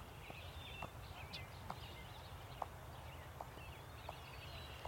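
Outdoor ambience: wind rumbling on the microphone, with birds chirping and a few faint, scattered ticks.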